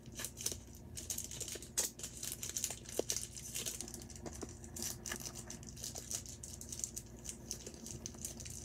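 Small plastic packaging crinkling and rustling as it is handled and opened, with many light irregular ticks and clicks.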